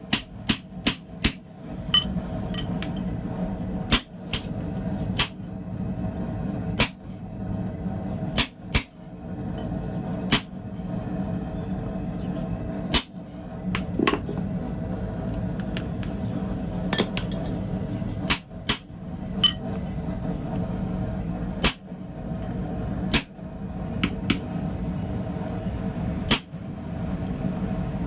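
Hand hammer striking a hammer-eye chisel driven through a hot steel hammer blank: single sharp metallic blows at uneven intervals, a quick run of them at the start, then about one every second or two. A steady low hum runs underneath.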